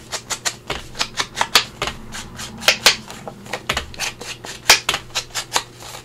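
Ink blending tool dabbed and swiped along the edge of a paper panel, a quick, irregular series of soft taps and brushing strokes, several a second, as ink is worked onto the paper.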